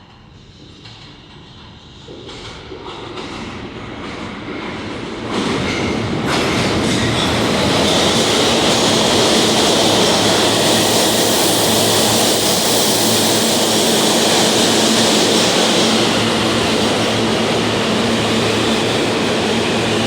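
New York City subway train approaching on the BMT Broadway Line, growing steadily louder over the first several seconds. It then runs loud and steady through the station, with a high whine over the rumble of wheels on rail.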